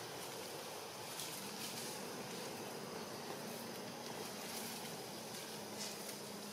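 Outdoor forest ambience: a steady hiss with a low, even insect buzz that comes in about a second in and holds, and a few faint ticks.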